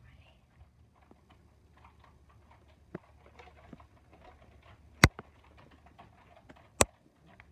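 Two sharp clicks, a little under two seconds apart, over faint scattered tapping and ticking.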